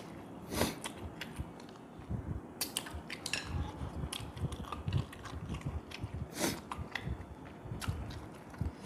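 Close-up eating sounds of a man chewing fish meat picked by hand from a fish head: steady wet chewing with sharp lip smacks and clicks every second or so.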